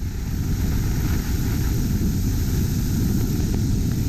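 Rigid inflatable boat running at speed across open water: a steady rush of engine drone, wind and water against the hull.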